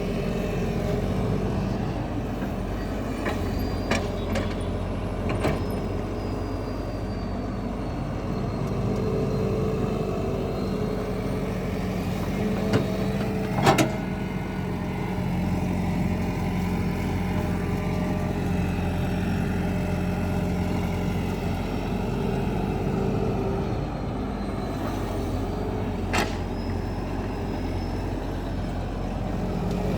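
Diesel engine of heavy road-construction machinery running steadily, with a few sharp clicks and knocks, the loudest about halfway through.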